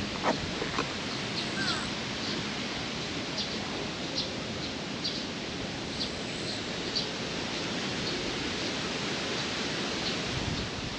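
Steady outdoor background noise with short high chirps recurring every second or so. There is a light knock near the start.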